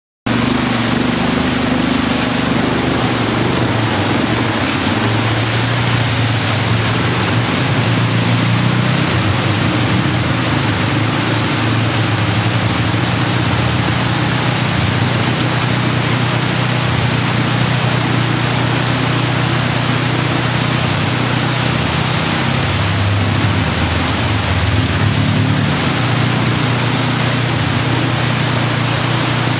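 ATV engines running while the quads drive through water in a concrete tunnel: a steady engine note that shifts in pitch now and then, under a loud constant rush of splashing and spraying water.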